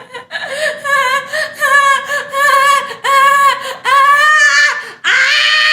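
A woman's high-pitched wordless wails, a run of about seven drawn-out 'aah' notes, each rising and falling, the last held longest. This is an overwhelmed, half-crying outburst of excitement.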